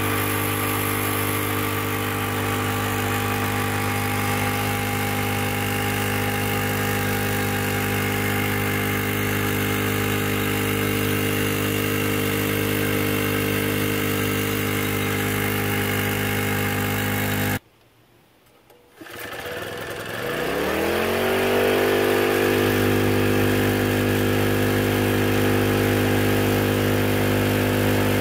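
Champion portable generator's single-cylinder OHV engine running steadily at its governed speed. About eighteen seconds in, the sound drops to near silence for about a second; then the engine starts and climbs to its steady running speed within about three seconds. It is running on the gasoline left in the carburetor bowl, not on the water plumbed into it.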